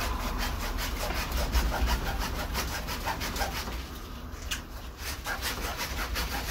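A blade sawing back and forth through the woody stem of a tall potted plant, in quick repeated strokes, several a second.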